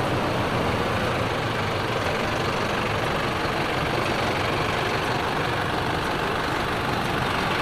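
Mercedes Unimog truck's diesel engine running steadily, with a low, even rumble.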